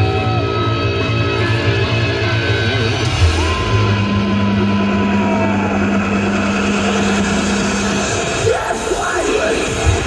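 Loud live bass-heavy electronic music from a concert sound system. Sustained heavy bass notes are joined by a long held tone through the middle, then a sweeping glide near the end breaks into punchy bass hits.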